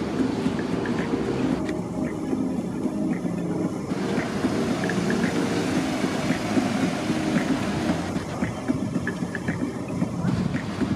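A car's engine running steadily, a rough low sound with no clear revving.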